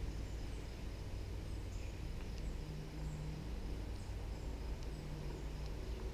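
Outdoor background with a steady low rumble and faint, high bird chirps now and then.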